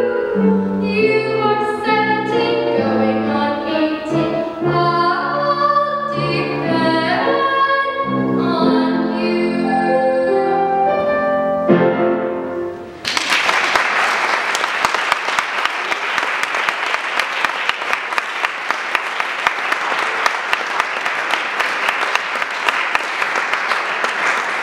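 A young singer's voice with piano accompaniment, ending about halfway through. Then an audience applauds.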